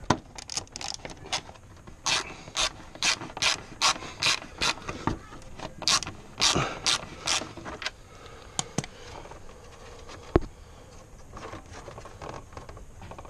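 Socket ratchet worked in short strokes on a motorcycle fairing bolt, its pawl clicking in a short burst about twice a second, then a few scattered clicks and a single sharp knock about ten seconds in.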